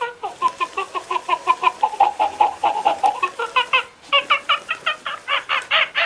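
Plush toy monkey's electronic chattering: rapid high-pitched calls, about seven a second, that dip in pitch and climb again, with a brief break about four seconds in.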